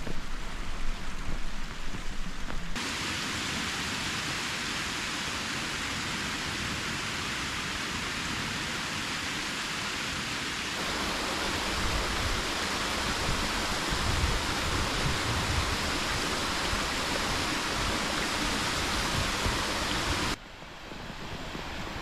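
Small waterfall pouring into a rock pool: a steady, even rushing hiss. A couple of seconds of gusty wind on the microphone come first, and the rush drops off abruptly near the end.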